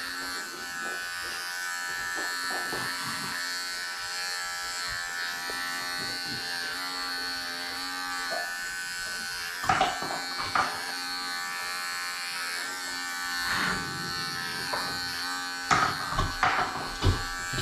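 Electric pet grooming clippers running with a steady buzz as they are worked through a dog's coat. A few short knocks break in about ten seconds in and again near the end.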